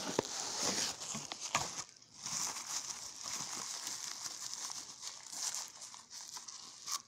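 Plastic bubble wrap crinkling and crackling as it is handled and pulled open by hand, with a brief pause about two seconds in.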